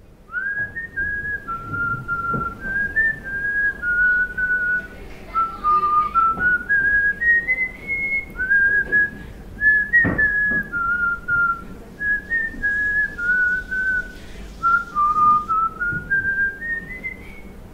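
A person whistling a tune: held notes stepping up and down, in two phrases that each climb to a high note at the end.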